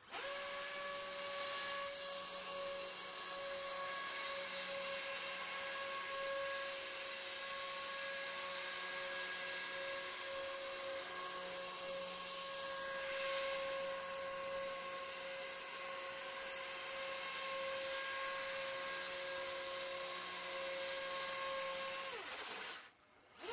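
Electric motor and ducted plastic propeller of a small RC hovercraft whining steadily at a constant pitch, with a rush of air. About 22 seconds in, the pitch falls as it throttles down and cuts out briefly, then it starts up again at the very end.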